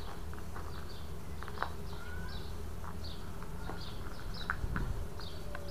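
Outdoor ambience: short high chirps repeating about twice a second, over a steady low rumble, with a few faint clicks.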